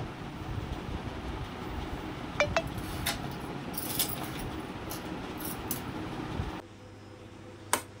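Bangles clinking as they are handled on a rack: a few light, separate clinks over a steady room hum. Near the end, after the hum drops away, a single clink of a steel spoon against a glass bowl.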